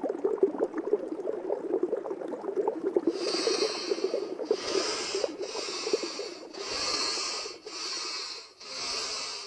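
Underwater bubbling sound effect with a dense crackle, then from about three seconds in a run of breathy hisses repeating roughly once a second.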